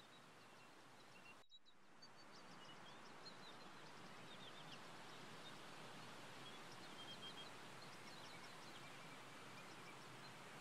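Faint outdoor ambience: a steady hiss with scattered small bird chirps and short trills. The sound cuts out briefly about a second and a half in.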